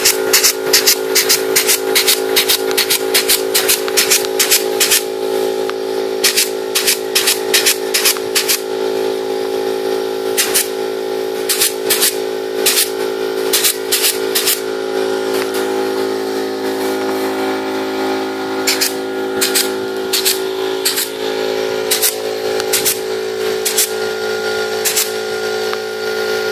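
Pneumatic clip gun firing again and again as it clamps wire clips onto welded wire mesh to join cage panels: sharp clicks in quick runs with short pauses, with air hiss. A steady droning tone runs underneath.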